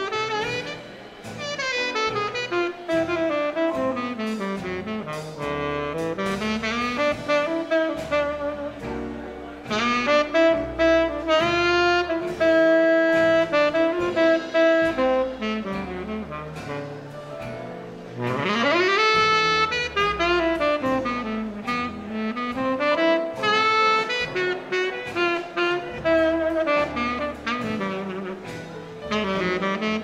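Swing dance band playing an instrumental break, with a saxophone leading the melody and a quick upward run about two-thirds of the way through.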